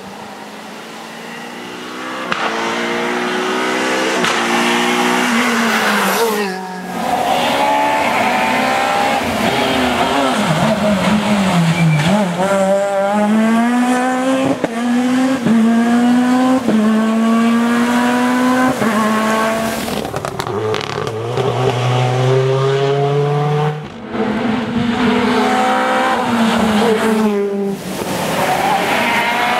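Rally car engines at full throttle as the cars pass one after another on a wet tarmac stage. The engine note climbs in repeated steps, each rise cut off by a quick upshift, with a few brief falls in pitch as a driver lifts off for a corner. Three short breaks mark the cuts from one car to the next.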